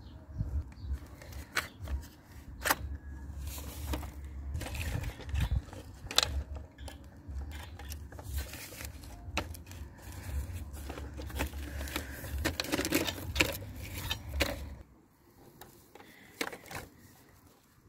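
Scraping, crackling and scattered clicks from a rubber T-rex puppet being handled and moved over dry dirt and grass, over a steady low rumble. The rumble stops about 15 seconds in, and the sound goes much quieter.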